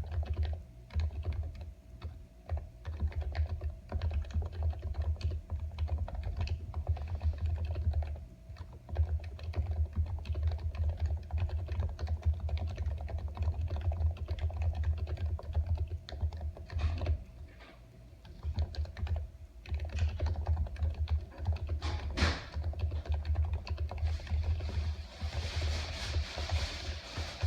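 Steady typing on a computer keyboard: quick, irregular key clicks, with short pauses about eight seconds in and again about eighteen seconds in.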